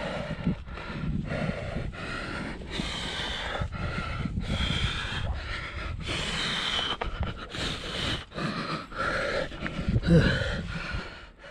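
A man panting hard, with quick, loud breaths about twice a second: he is out of breath from climbing a short, steep rock pinnacle.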